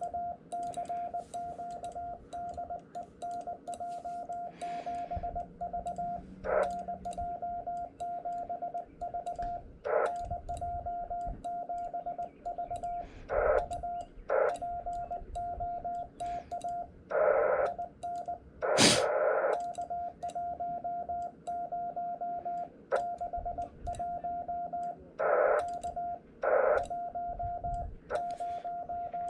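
Morse code (CW) from a portable amateur radio transceiver: a single steady-pitched tone keyed on and off in quick dots and dashes. It is broken by several short bursts of noise, the loudest about two-thirds of the way in.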